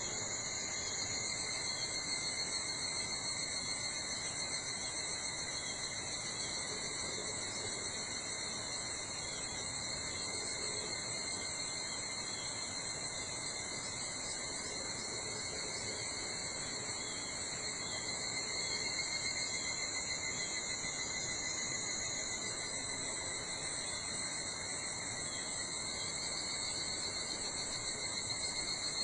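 A chorus of insects trilling without pause, several overlapping high-pitched songs held at steady pitches over faint background hiss.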